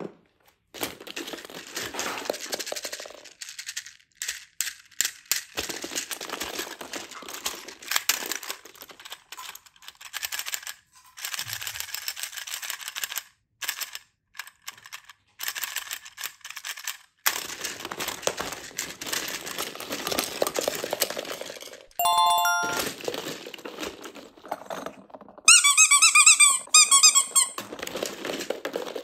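Hollow plastic balls and plastic toys rustling and knocking against each other as a hand digs through a basket of them, in stretches broken by short pauses. About three-quarters of the way through there is a short high beep, and near the end a louder warbling tone lasts about a second and a half.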